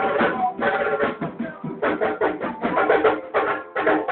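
Live pagode music: hand drums and percussion beating a fast rhythm under plucked strings.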